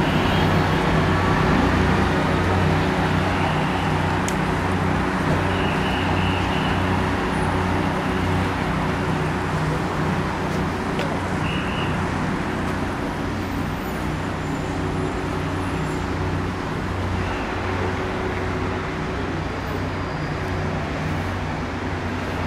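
Steady road traffic noise with a continuous low engine hum, slowly getting a little quieter.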